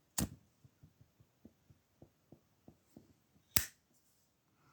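Metal lid of a Zippo lighter clicking: a sharp click just after the start, a run of faint light ticks, then another sharp click about three and a half seconds in.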